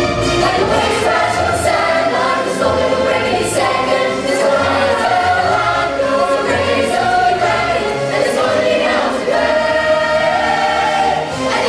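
A large stage-musical chorus of men's and women's voices singing loudly together over instrumental accompaniment.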